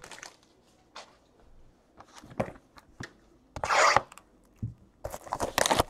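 Hands handling trading card packs and a cardboard card box: scattered taps and clicks, a short rustle a little before four seconds in, and a denser run of rustling and scraping near the end.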